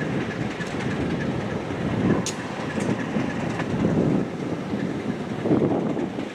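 Buffalo Southern Railroad train rolling past at a grade crossing: a continuous wheel-and-rail rumble with clacking and a couple of sharp metallic clicks, which drops off abruptly at the very end.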